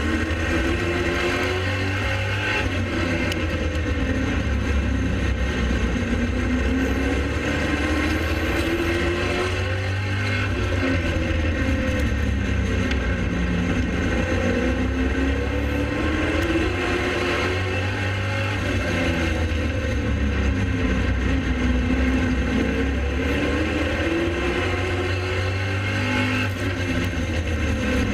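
Pro late model race car V8 engine running at racing speed, its pitch climbing as it accelerates and dropping as it lifts off, over and over every several seconds, above a steady deep rumble.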